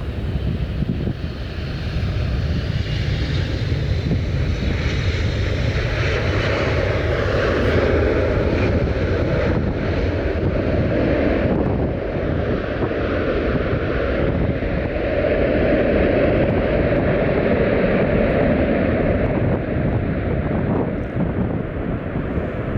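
Jet airliner engines passing, a loud steady rumble with a hissing upper part that swells toward the middle and thins out after about halfway, while the low rumble carries on.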